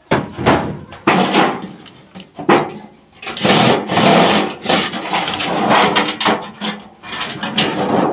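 Hand tools working a sheet-metal gutter: about five sharp knocks in the first three seconds, then a longer stretch of dense, uneven tool noise.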